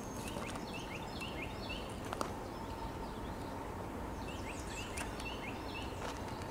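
A songbird sings two quick phrases of short chirps, the first just after the start and the second a little past four seconds in. Under it runs a steady low background rumble with a faint steady hum.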